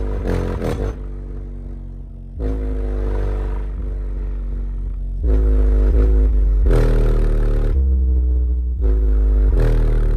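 Savard HiQ 8 8-inch dual-voice-coil subwoofer playing deep bass notes in free air, its cone making long flexing strokes. The notes change every second or two, with a softer stretch about a second in and louder ones from about halfway on.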